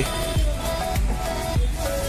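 Background music with a beat and sustained tones.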